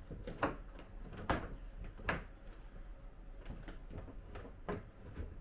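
Heavy wooden drawer cabinet being nudged and shifted on floorboards: a series of sharp wooden knocks and bumps, four louder ones spread through, with softer taps between.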